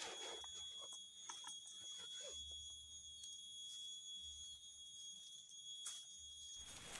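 Faint quiet ambience: a steady high-pitched whine, with a few soft rustles in the leaf litter.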